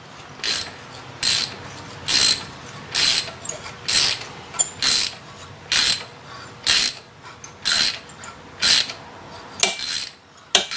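Small hand ratchet wrench clicking as it turns a thread-cleaning tap into a cast iron hole, about a dozen short ratcheting bursts roughly once a second, one on each return stroke. The tap needs the ratchet because the threads are not clean enough to spin it by hand.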